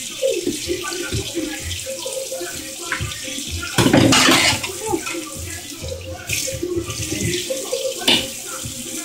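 Ripe avocado being crushed by hand in a bowl: irregular wet squishing and scraping, with one louder scrape about four seconds in.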